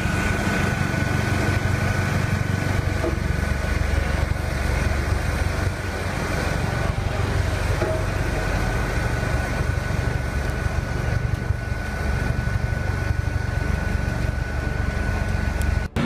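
Diesel engine of a 20-ton Shantui SR20M single-drum road roller running steadily as it compacts stabilised soil, with a low rumble and a thin steady whine over it.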